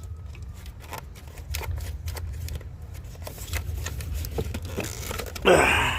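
Small clicks and scrapes of a flathead screwdriver prying at a stubborn plastic connector clip, with a louder rasping noise about five and a half seconds in, over a steady low hum.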